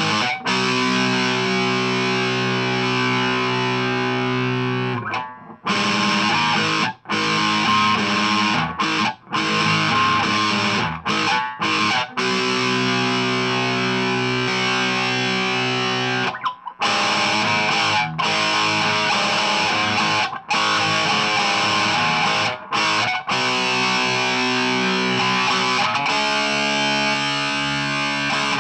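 A 2012 Epiphone Les Paul Standard goldtop electric guitar with stock pickups and a Hosco wiring kit, played through a Marshall Origin 20 head and a Harley Benton 2x12 cabinet with distortion. Held chords are cut off abruptly every second or few, with short silent breaks.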